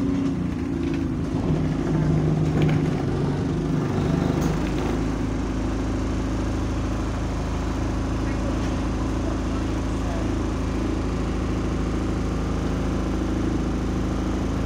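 Bus diesel engine heard from the rear seats inside the passenger cabin. Its note shifts for the first few seconds, then settles into a steady low idle about four seconds in.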